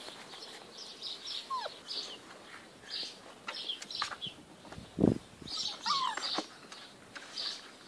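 Great Dane puppies squeaking and whimpering, with short high squeaks scattered throughout and two brief falling whines, plus a dull thump about five seconds in.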